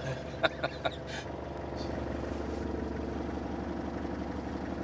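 Four-wheel-drive safari vehicle's engine running steadily as it drives, heard from inside the cabin as an even, low drone.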